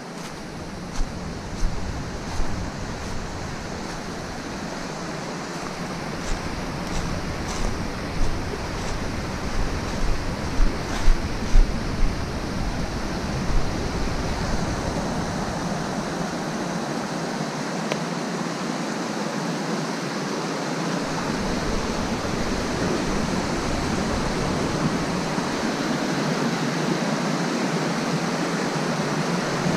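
Rushing mountain creek tumbling over rocks: a steady rush that grows gradually louder. Over the first half, a string of footsteps on dry leaves and then on the wooden boards of a footbridge.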